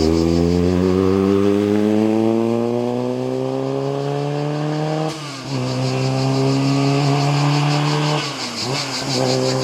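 Historic racing car engine accelerating hard under load, its pitch climbing steadily, with a brief drop as it shifts up about five seconds in, then climbing again before another short dip near the end. Cicadas buzz steadily behind it.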